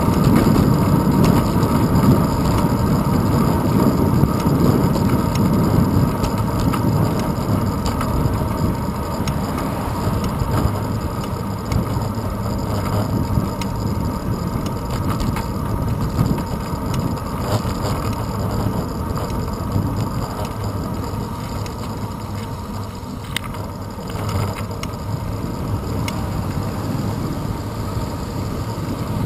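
Wind rush and road rumble on a handlebar-mounted GoPro Hero 2 as a bicycle rolls along a paved road, a steady deep noise that eases somewhat after the first few seconds.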